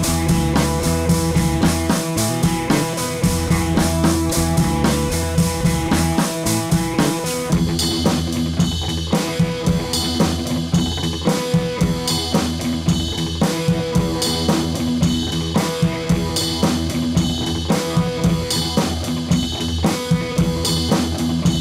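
Background rock music with a drum kit, bass and guitar and a steady beat; the drums get busier about eight seconds in.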